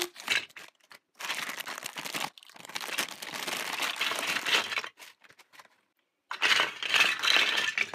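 Thin clear plastic bag crinkling as it is handled and emptied, with Lego Duplo bricks clattering inside. It comes in about four bursts, with a short silence before the last.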